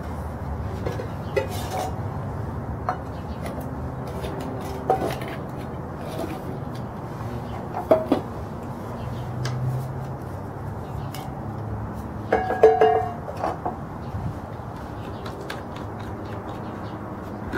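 Metal camp cookware being handled on a wooden table: light clicks and clinks of a titanium pot, its lid and a camp stove being set out, with one louder ringing clank past the middle. A steady low background noise runs underneath.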